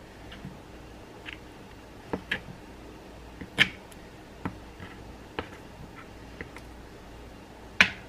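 Chef's knife chopping cheese on a plastic cutting board: irregular short knocks as the blade strikes the board, about one a second, the loudest near the end.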